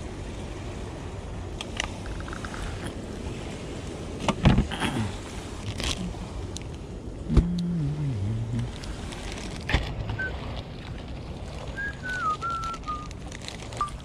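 Steady outdoor wind and water noise with a few sharp knocks and a brief low, falling groan-like tone, then a faint wavering high whistle near the end.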